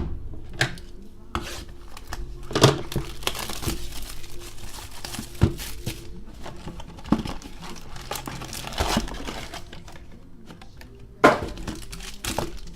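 Plastic trading-card pack wrappers crinkling and tearing as packs are opened, with several sharp knocks of handling; the loudest knock is right at the start and another comes near the end.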